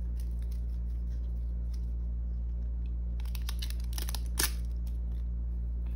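Thin resealable plastic photocard sleeves rustling and crinkling as cards are handled and slid into them, with a cluster of sharper crinkles about three to four seconds in. A steady low hum sits underneath.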